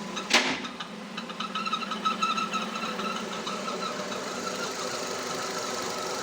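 Nissan Terrano / Renault Duster engine idling with a steady high-pitched squeak, which comes from the crankcase ventilation valve squealing as vacuum builds in the crankcase. A short, loud burst of noise comes about a third of a second in.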